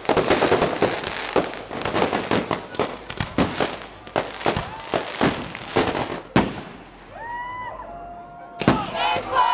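Fireworks going off in quick succession, a dense run of sharp cracks and bangs that eases off about six and a half seconds in, with one more bang near the end.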